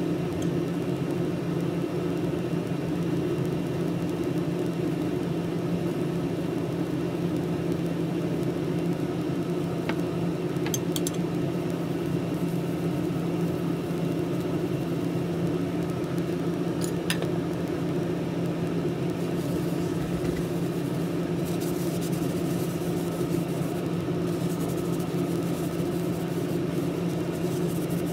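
Steady low mechanical hum, like a motor or fan running without change, with a few light clicks about a third and two thirds of the way through.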